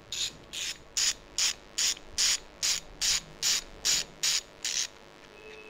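Ratchet clicking from a 1/2-inch (12.5 mm) drive socket ratchet worked back and forth by hand. It gives about thirteen short, even rasps at two to three a second that stop near the end. The new pawl mechanism is very stiff.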